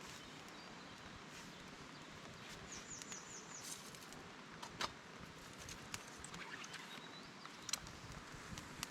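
Faint outdoor ambience: a steady hiss with a few sharp pops, and a bird calling a quick run of about five high chirps about a third of the way in.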